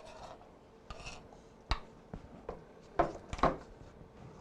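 Kitchen utensil scraping and knocking against a skillet as diced onion goes into the pan: a few short scraping strokes, then sharp knocks at about a second and three-quarters and twice more around three seconds in.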